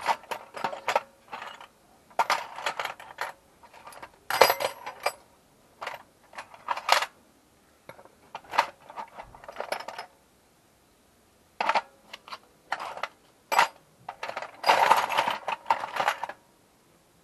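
Metal hand tools clinking and clattering in repeated bursts as they are rummaged through and tried one after another in search of the right size.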